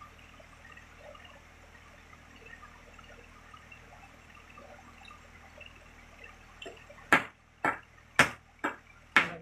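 Faint background for about seven seconds, then a hammer striking wood: five sharp, loud blows about two a second, driving a nail into a wooden frame.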